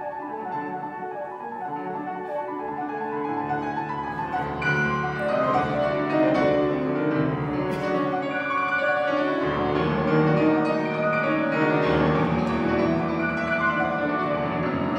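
Grand piano played solo, full chords and runs that grow louder about four and a half seconds in.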